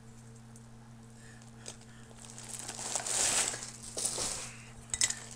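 Plastic wrapping crinkling and rustling in the hands for about two seconds, starting about halfway through, with a few light clicks near the end.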